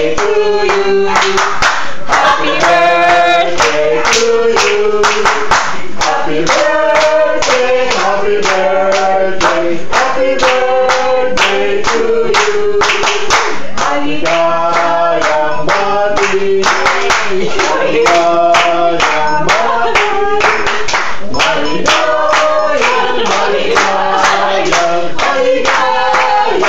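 A small group of adults singing a birthday song together while clapping along in a steady rhythm.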